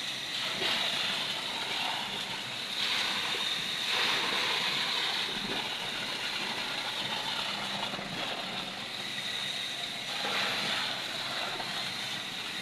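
Steady machine noise and hiss from concrete-pouring equipment, a mobile concrete pump and transit mixer truck at work. It swells a little about three seconds in and again near the end.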